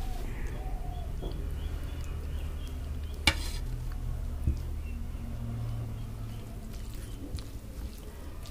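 A steel bowl clinks once with a short ring about three seconds in, as dal is poured from it onto a plate of rice, and a softer knock follows a second later. A steady low hum runs underneath.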